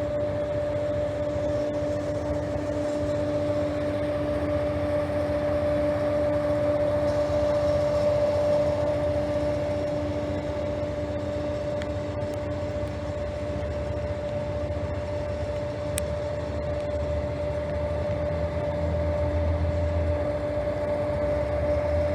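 Steady mechanical hum of idling diesel railway equipment: a constant droning tone over a low rumble that swells near the end.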